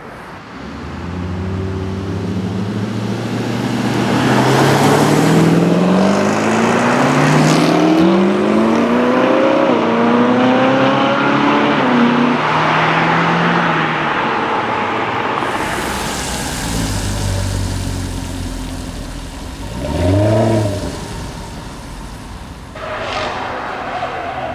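V8 sports car accelerating hard, its engine pitch climbing in steps through several gear changes. It then settles into a deeper rumble with a short, sharp rev about twenty seconds in.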